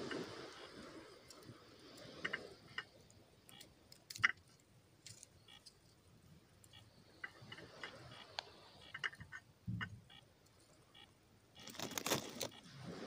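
Knife shaving curls off a thin stick of wood to make a feather stick: faint scattered scrapes and small clicks, with a sharp click about four seconds in and a dull knock near ten seconds. Rustling swells at the start and again near the end.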